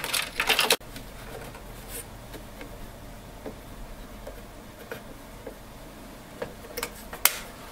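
Plastic handling noises from a feed roller being fitted back onto its shaft in a Brother ADS-3000N document scanner. Louder handling noise in the first second stops abruptly, then a few faint clicks and taps follow over a low steady hum.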